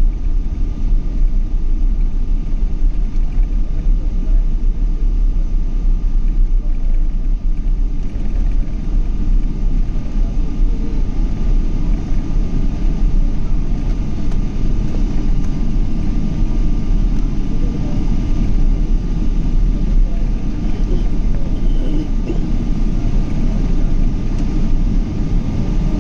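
Steady jet-airliner cabin noise of a Boeing 777: a constant deep engine and airflow rumble with a thin steady whine above it.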